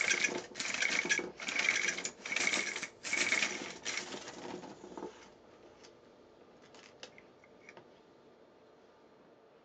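Plastic film-processing spiral (Russian 16/35×100 PRO double spiral) being wound by twisting its centre knob to load 16 mm film: short bursts of rapid clicking, about five of them, one for each twist. They stop about halfway, and a few faint clicks follow.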